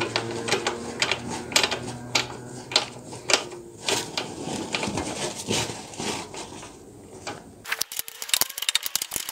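Metal tools clicking and knocking against the rear axle nut and chain adjuster of a Royal Enfield Bullet 500 as the wheel is refitted. Near the end there is a fast, dense run of clicks, like a socket ratchet being worked on the axle nut.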